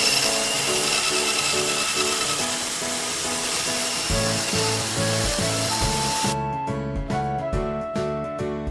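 A power tool working wood, a dense steady grinding noise that cuts off abruptly about six seconds in. Background music plays throughout, with a drum beat entering about four seconds in.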